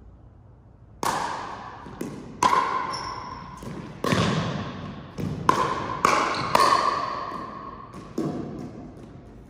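A run of sharp ball hits and bounces, about nine of them at an uneven pace, each echoing in a large hall.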